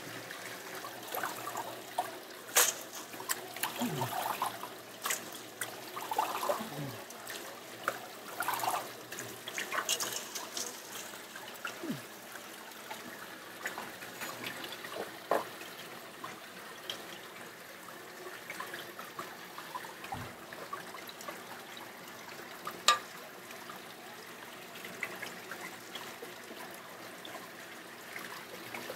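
Water running and trickling from a pipe into a plastic colander of thin raw carp slices, rinsing them in cold water for carp arai. Occasional sharp clicks and knocks, the loudest twice, once near the start and once near the end.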